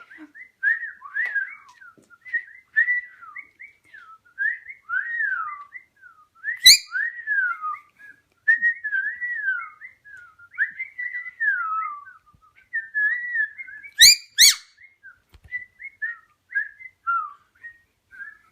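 A parrot whistling a continuous run of short, warbling phrases that glide up and down, mostly falling in pitch. The whistling is broken by three sharp, loud chirps: one about a third of the way in, and two close together about three-quarters through.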